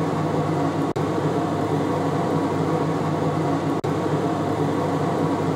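Pot of water with chicken at a rolling boil: a steady bubbling rumble with a low hum underneath. The sound drops out for an instant twice, about a second in and near four seconds.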